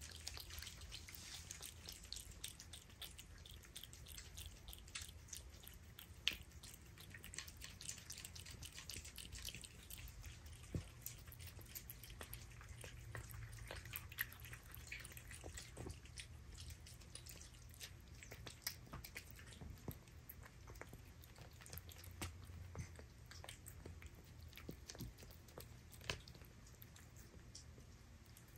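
A cat chewing and licking wet canned sardine food off a paper plate: faint, irregular wet clicks and smacks, with a few sharper ones.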